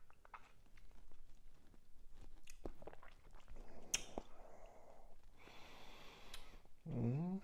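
Small wet mouth smacks and clicks of a person working a sip of whisky around the mouth, tasting it on the palate, with a breath out partway through and a short hummed "mm" near the end.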